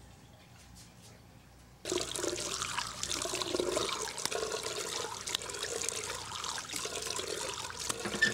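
Water running from a bathroom tap into a sink, with splashing as a face is washed under it. It starts suddenly about two seconds in and stops abruptly with a click at the very end.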